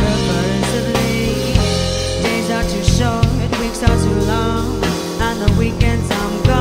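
Live soul-electronic band playing: drum kit with snare and cymbal strokes, bass and keyboards, under a woman's sung melody.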